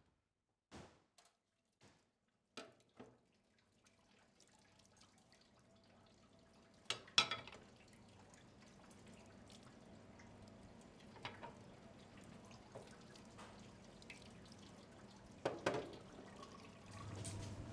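Faint water running and dripping at a kitchen sink, slowly growing louder, with a few sharp knocks, the loudest about seven seconds in. It is preceded in the first three seconds by a handful of soft thuds that fade away.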